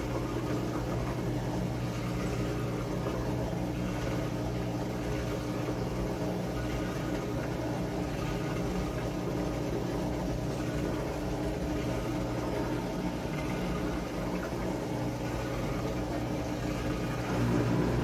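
Top-loading washing machine running with a steady motor hum, getting a little louder near the end.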